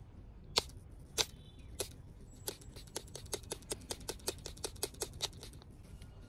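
Trigger spray bottle squirting liquid onto a tire tread: short spritzes, the first three about half a second apart, then a quicker run of about five a second that stops about a second before the end.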